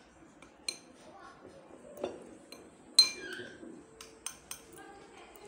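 Spoon clinking and scraping against a ceramic bowl as a thick paste is stirred, with scattered sharp taps, the sharpest about three seconds in.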